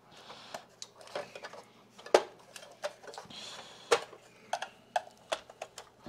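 Irregular clicks and knocks of hard plastic vacuum-cleaner housing parts being pried apart with a screwdriver and handled, with two sharper knocks about two and four seconds in.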